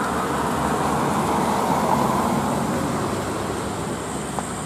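Road traffic on wet asphalt: a loaded Mitsubishi Fuso Canter dump truck's diesel engine running among passing cars and motorbikes, with tyre noise that swells a little about two seconds in.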